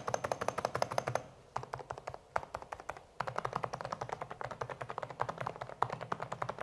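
DAREU A104PRO FLEX full-size mechanical keyboard with silent Mustard switches and foam sound dampening being typed on quickly: a fast run of soft, muted keystrokes. There is a short pause a little over a second in and a longer one around two to three seconds in.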